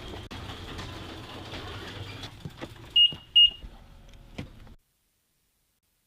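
Two short, loud, high electronic beeps a bit under half a second apart, over a low, steady background rumble; the sound then cuts off to silence.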